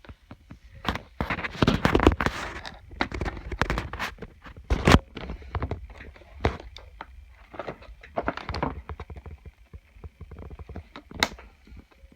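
Handling and opening of a toy's packaging: an irregular run of clicks, knocks and scraping rustles, sharpest about two and five seconds in.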